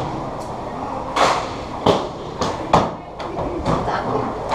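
Five or six sharp knocks or thuds at uneven intervals over a steady background clatter.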